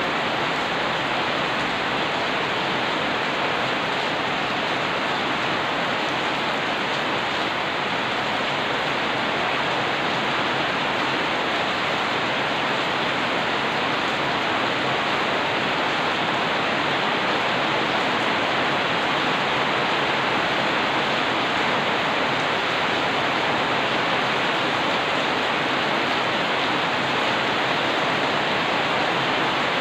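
Heavy rain pouring steadily, an even hiss with no single drops or thunder standing out.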